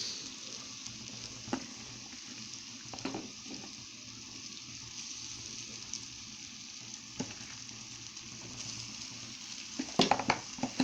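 Boiled, chopped mallow greens (bekoula) sizzling steadily in a pan with fried garlic, coriander and spices, with a few sharp knocks of stirring against the pan that bunch together near the end.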